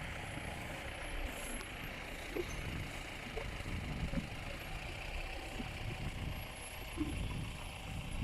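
A vehicle engine running steadily, giving a low, even rumble.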